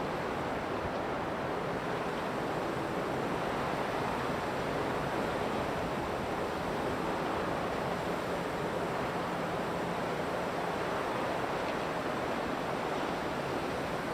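Wind blowing steadily through forest trees, an even rushing noise with no gusts standing out.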